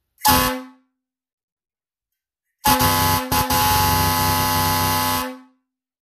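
Grover emergency air horn blasting: a short burst, then a longer steady blast of about two and a half seconds that falters briefly twice near its start.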